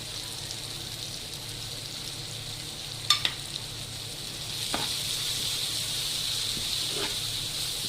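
Onions, tomatoes and spices frying in oil on a hot tawa: a steady sizzle that grows a little louder about halfway through, with a few sharp taps about three, five and seven seconds in.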